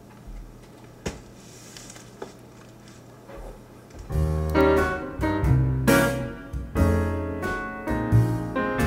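Quiet room tone with a couple of faint knocks, then piano music starts about four seconds in, with chords over low bass notes.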